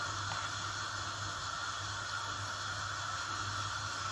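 Steady hiss of a pan of millet and vegetables in hot water heating toward the boil, with a constant low hum underneath.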